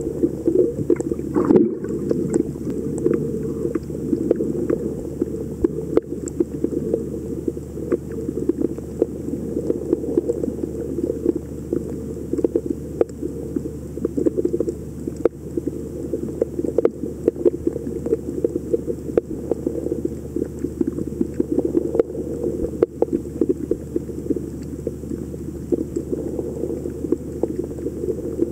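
Underwater ambience heard through a submerged camera: a steady muffled rumble with many irregular sharp clicks and crackles.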